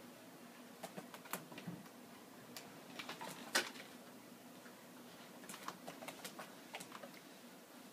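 Faint, irregular scratching and clicking of a cat's claws scrabbling against a wall and the wooden side of a bookcase as it hangs on and tries to climb up, the loudest scrape about three and a half seconds in.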